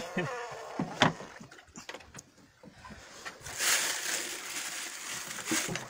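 A sharp knock about a second in, then water splashing and sloshing over the last couple of seconds.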